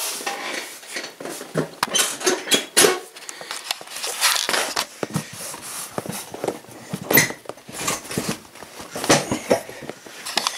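Irregular clicks, clacks and metallic rattles as the go-kart's seat and seat-belt hardware are handled; no engine is running.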